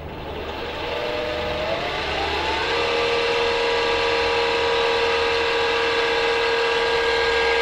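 Keda 56-63 195Kv brushless motor driving a propeller through its gears, spinning up as the throttle is advanced: its whine rises in pitch for about the first three seconds, then holds steady at a high speed.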